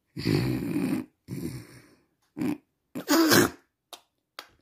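A child making noises with the voice in four short bursts, the loudest about three seconds in, followed by two faint clicks.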